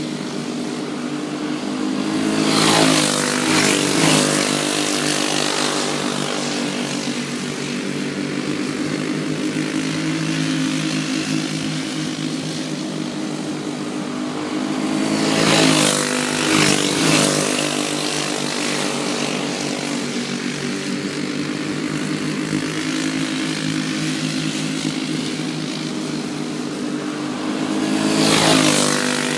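Racing go-kart engines running hard as a pack of karts laps the track, their drone swelling and dropping in pitch as the karts sweep past close by, about every 13 seconds, three times. Each pass brings several karts in quick succession.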